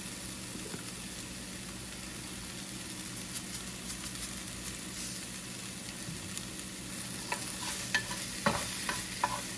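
Chopped onion, garlic and tomato frying in a square pan with a steady sizzle. From about seven seconds in, a wooden spatula scrapes and taps against the pan as the mix is stirred.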